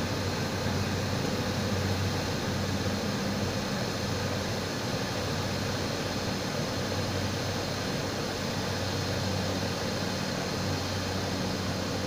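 Cessna 208 Caravan's PT6A turboprop engine and propeller running steadily at reduced power, with a constant rush of air, during the landing flare over the runway, heard from inside the cockpit.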